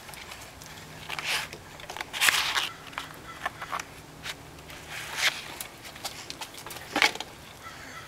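Paper rustling and crinkling in several short bursts as sheets of paper and a paperback book are pressed, folded and handled.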